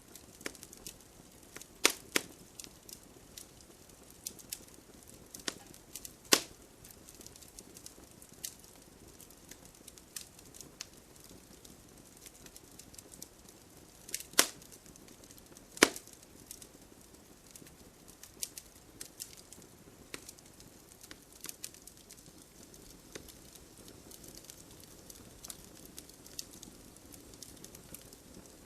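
Fireplace fire crackling, with irregular small snaps and sparks over a soft steady rush of flames. Several loud sharp pops stand out: one about two seconds in, another about six seconds in, and two close together in the middle.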